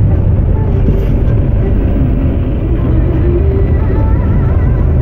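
Steady low rumble of a Scania bus's engine and tyres heard from inside the cabin while cruising at speed.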